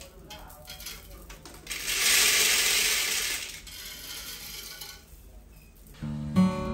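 A handful of dry grain dropped onto a tiled floor and a wooden plank, a rattling shower of grains lasting about a second and a half from about two seconds in. Acoustic guitar music starts near the end.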